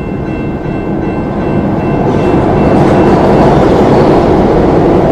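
Subway train running through the station: a loud rumble with rail clatter that builds over the first few seconds.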